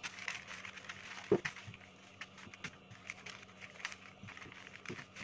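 Baking paper crinkling and rustling as a stainless-steel rolling pin rolls cookie dough between two sheets, with scattered light clicks and one sharper knock about a second in.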